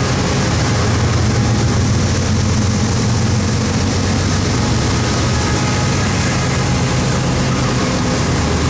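Manifest freight train passing close by: its diesel locomotives run with a steady low engine drone, which eases near the end as freight cars roll past on the rails.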